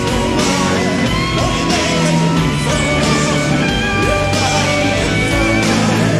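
Live rock band playing loudly: an electric guitar lead with bending, sliding notes over drums with regular cymbal hits and bass.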